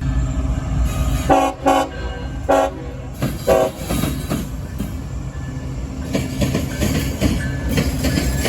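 Diesel locomotive air horn giving a salute: four short blasts within about two and a half seconds, over the steady low rumble of a passing train that carries on afterwards.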